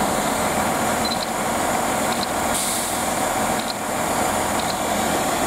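Great Western Railway Class 165 diesel multiple unit idling at a station platform: its underfloor Perkins diesel engines give a steady rumble with a steady whine. A short hiss rises over it about two and a half seconds in.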